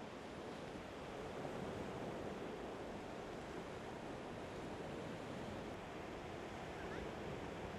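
Sea surf washing onto a beach: a steady rush of small breaking waves.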